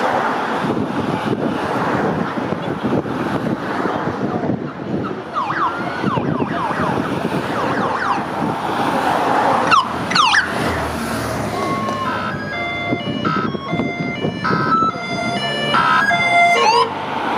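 Race-convoy emergency vehicles passing a roadside crowd, their sirens sounding over the crowd noise. About twelve seconds in, a run of short stepped tones at changing pitches begins and lasts until near the end.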